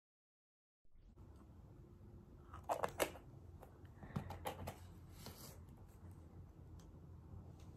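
A few sharp plastic clicks and light rattles from a pump-top hand soap bottle being handled, in two short clusters about three seconds in and again a second or so later, over a faint room background. The audio is cut to dead silence for about the first second.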